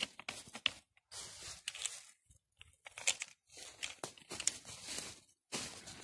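Plastic bag crinkling and rustling in irregular bursts with short pauses, as mushrooms are packed into it by hand.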